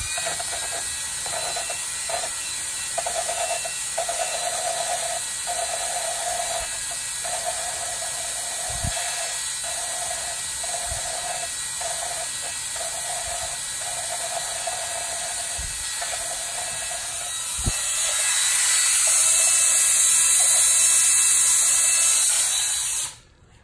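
Cordless drill spinning an engine valve against its seat through a rubber hose on the stem, lapping the valve with grinding compound. A steady whir with a grinding note that breaks in and out, getting louder for the last few seconds and then cutting off suddenly.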